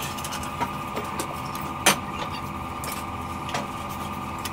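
Steady mechanical hum made of several held tones, with scattered sharp clicks and one louder knock about two seconds in.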